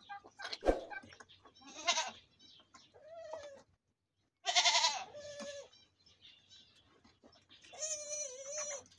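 Goats bleating: about four wavering bleats, the loudest about halfway through and a longer one near the end, with a sharp knock under a second in.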